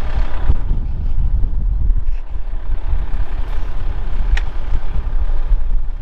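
Strong wind buffeting the microphone over a wheel loader's engine idling. One short click about four and a half seconds in.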